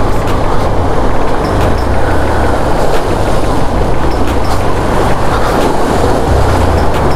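Motorcycle crossing a fast-flowing mountain stream: the engine runs low under a steady rush of water.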